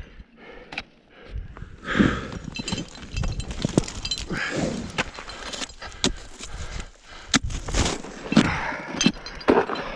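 Ice axes struck into firm snow and crampons kicked into the slope during a winter climb: repeated sharp crunching strikes and scrapes, with the climber's short, hard breaths of effort every couple of seconds.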